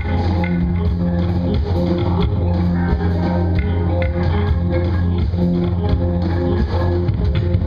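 Live improvised jazz-rock jam: bass guitar holding deep notes under guitar and a drum kit keeping a steady beat.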